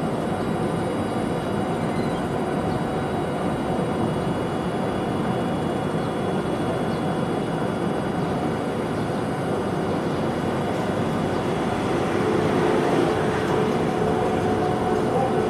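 Steady outdoor rumble of traffic and surroundings as an Iyotetsu 2100-series tram approaches. About twelve seconds in, a steady two-tone hum joins in and the sound grows slightly louder as the tram draws near.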